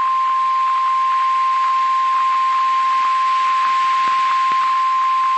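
NOAA Weather Radio warning alarm tone: one steady 1050 Hz tone held without a break, marking the start of a new weather warning. It plays over a hissy radio signal with faint crackles.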